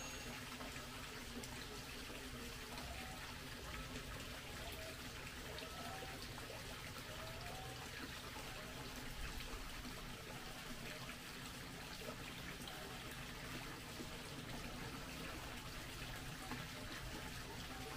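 Faint, steady trickle of running water, with a few faint short chirps in the first half.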